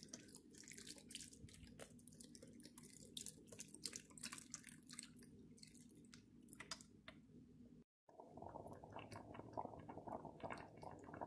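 Vegetable broth pouring from a carton onto sliced yellow squash in a pot, faint, with many small splashes and drips. It breaks off sharply near eight seconds in, followed by a faint steady noise with small ticks.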